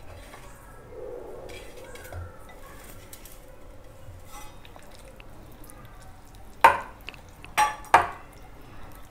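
A bare hand mixes cauliflower florets through thick maida-and-cornflour batter in a glass bowl, making soft, wet stirring and squishing. Near the end the glass bowl clinks sharply three times, the last two close together.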